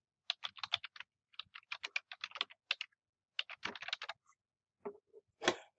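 Computer keyboard being typed on: quick bursts of key clicks as a short phrase is entered, with pauses between bursts and a couple of separate clicks near the end.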